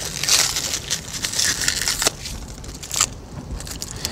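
Plastic packaging crinkling and crackling in irregular bursts as it is pulled off a new string trimmer, with a couple of sharp clicks.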